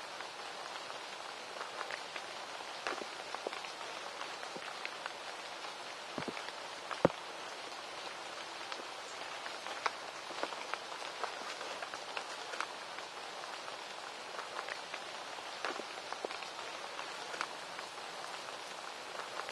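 Steady patter of rain, with many scattered small drop ticks and one sharper tick about seven seconds in.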